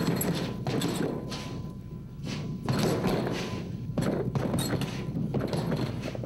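Fists punching a hanging heavy punching bag: a string of irregular thumps, roughly one a second.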